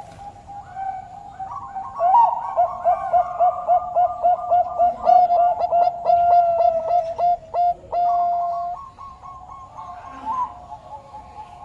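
Zebra dove of the Bangkok strain kept by Indonesian perkutut hobbyists, singing a loud, fast run of short coos at about four a second from about two seconds in. The run ends in one longer held note, over softer cooing that runs throughout.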